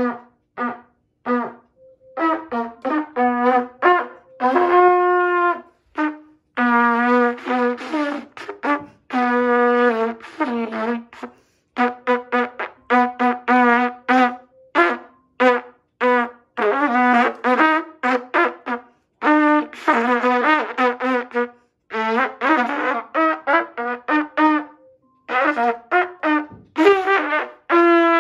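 Trumpet played with a flat black cover over its bell: runs of short, separately tongued notes mixed with a few longer held notes, broken by short pauses between phrases.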